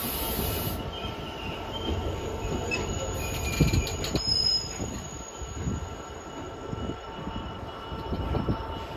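Freight train wagons rolling past, with a steady rumble and irregular knocks from the wheels and several thin, steady high squealing tones from the wheels.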